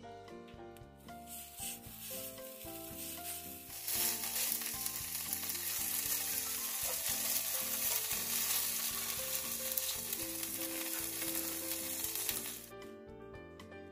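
A small spoonful of chive-and-pork dumpling filling frying in hot oil in a nonstick pan. It sizzles faintly at first and is loud from about four seconds in, then stops suddenly near the end. Background music plays throughout.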